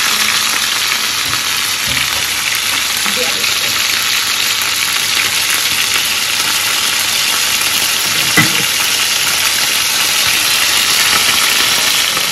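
Chicken pieces frying in hot oil in an enamel pan: a steady sizzling hiss, with one short click about eight seconds in.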